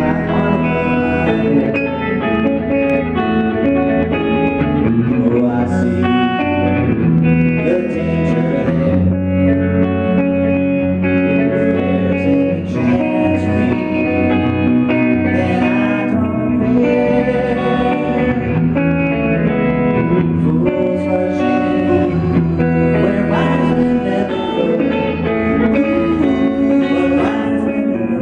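A live pop-rock band playing with guitars and electric bass under a male lead vocal, steady and loud throughout.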